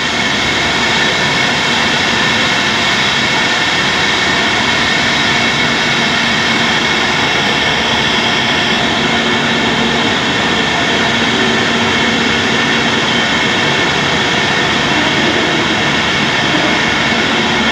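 Steady din of a fruit-canning production line's machinery running: a dense, even noise with several steady high tones over it.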